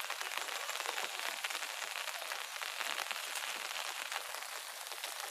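Rain pattering steadily, a dense crackle of many small drops.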